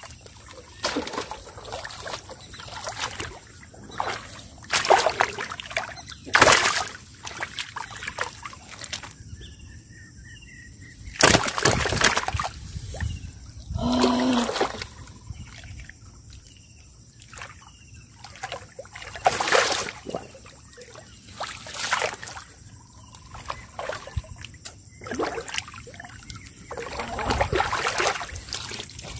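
Irregular splashes and sloshing in shallow, muddy paddy water as hands grope in the mud and a caught catfish moves in the water, some splashes sharp and loud, others brief and soft.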